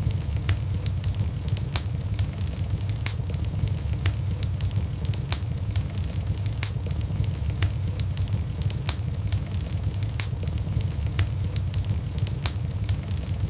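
Wood burning in a fireplace, crackling: frequent sharp pops and snaps at irregular intervals over a steady low rumble of the flames.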